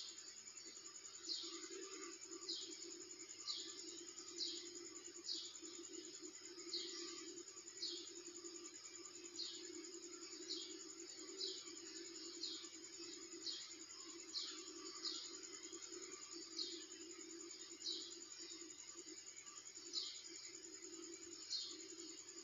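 A small bird chirping again and again, short descending chirps about once a second at uneven intervals, over a steady low hum.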